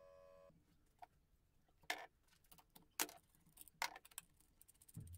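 A steady electric-motor hum cuts off about half a second in, then a few sharp clicks and taps with smaller ticks between as metal parts are handled to change the grinding wheel on the homemade bench grinder's motor shaft, and a low thump near the end.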